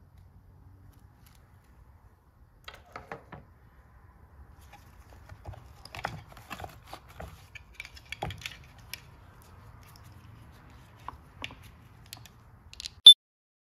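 Handling noise of a jump starter kit's accessories being picked up and moved about in their case: scattered light plastic and metal clicks and rustles, with one sharp, loud click near the end.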